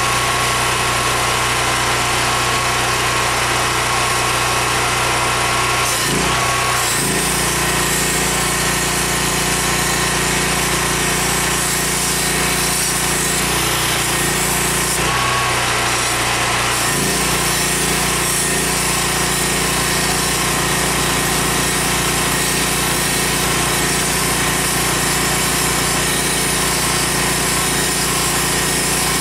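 Hand-held cutoff tool running and cutting into the rusted steel rocker panel of a Datsun 1600, throwing sparks. It runs continuously, with the sound shifting about six seconds in and again around fifteen to seventeen seconds as the cut changes.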